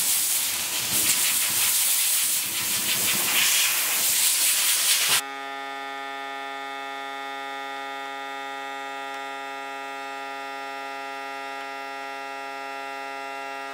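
Compressed-air blowgun hissing in uneven blasts as it blows sawdust out of holes in rough-sawn barn boards. About five seconds in it cuts off suddenly, and a steady held chord takes over and runs on unchanged.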